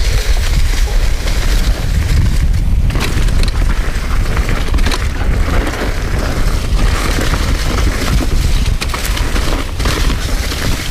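Mountain bike descending a dry, leaf-covered dirt trail, heard from the rider's own camera: tyres crunching over leaves and dirt with knocks and rattles from the bike over rough ground, under a loud, steady rumble of wind on the microphone.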